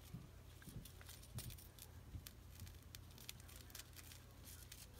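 Faint, scattered light ticks and rustles of hands working loose potting soil into a plastic cup.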